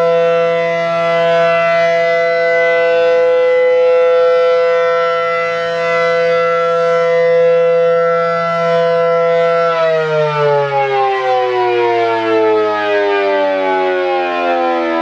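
ACA Allertor electromechanical outdoor warning siren sounding a loud, steady alert tone, then winding down about ten seconds in, its pitch sliding steadily lower as the alert signal ends.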